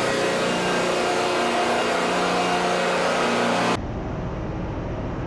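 Engine-room machinery noise on a ship with the main engine stopped: running diesel generators and auxiliary machinery make a loud, steady hum with many steady tones and hiss. About four seconds in it changes abruptly to a lower, duller machinery rumble.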